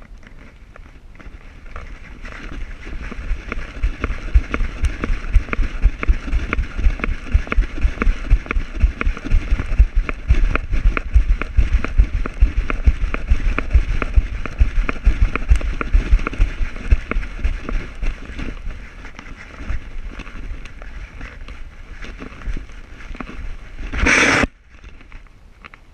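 Rapid, rhythmic thumping of a dog-mounted camera jostled by the dog's running gait, with a steady rush of wind, easing off late on. About 24 seconds in comes a brief, loud scrape as the camera pushes into the leaves of a yucca.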